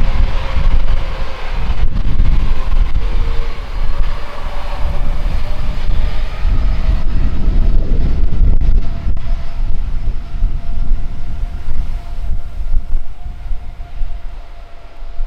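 Airbus Beluga XL's twin Rolls-Royce Trent 700 turbofans at take-off power: a loud, deep rumble with a thin whining tone over it, easing off near the end as the aircraft climbs away.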